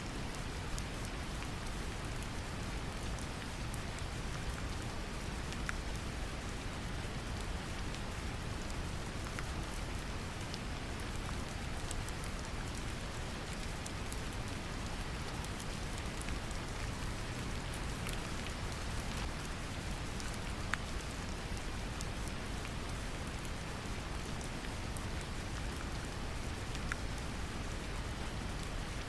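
Steady rain with scattered drop ticks, layered over deep, even brown noise, as a sleep-ambience mix.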